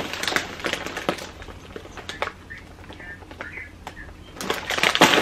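Plastic snack packaging and shopping bags rustling and crinkling as they are handled, with scattered light taps. A louder, denser bout of crinkling comes near the end.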